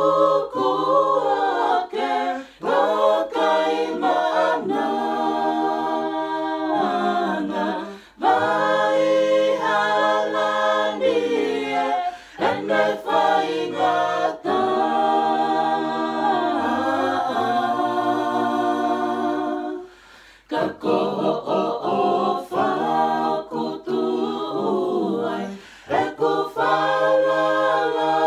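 A mixed group of men's and women's voices singing a Tongan gospel song a cappella in harmony, long held phrases with short breaks between them.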